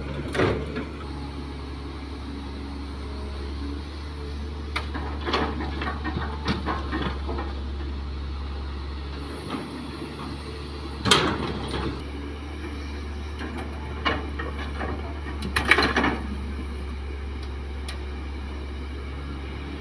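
Kobelco hydraulic excavator's engine running steadily, with clattering crashes as loads of soil and rock drop into the dump truck's steel bed, the loudest about eleven seconds in and again near sixteen seconds.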